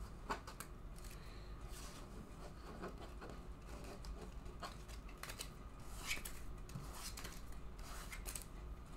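Trading cards being picked up and slid across a tabletop by hand: faint, irregular scraping and rustling, a few light scratches every second or so.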